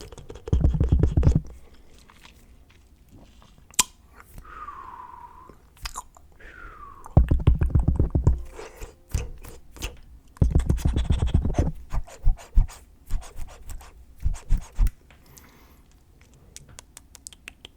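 Close-up ASMR mouth sounds: three runs of rapid wet clicking and smacking, with scattered single clicks between them and a couple of brief falling tones near the middle.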